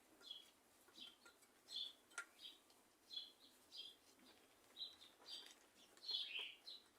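Faint bird chirping: short high chirps repeated about once or twice a second, with a faint sharp click about two seconds in.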